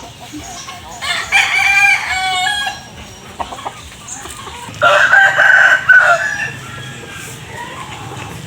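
A rooster crowing twice, each crow about a second and a half long, with hens clucking underneath.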